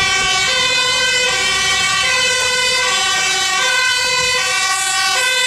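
Fire engine's two-tone siren sounding loud and close, switching back and forth between a low and a high note about every three-quarters of a second.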